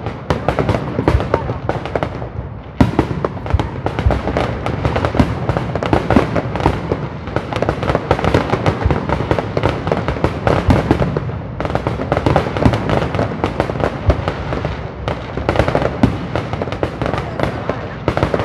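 Aerial fireworks show firing a dense, unbroken barrage of shell bursts: many sharp bangs and crackles in quick succession, with a louder bang a little under three seconds in.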